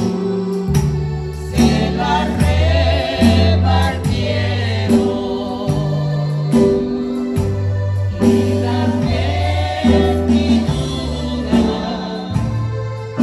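Small amplified church choir of mixed voices singing a Spanish-language hymn into microphones, over instrumental accompaniment with sustained bass notes that change every second or two.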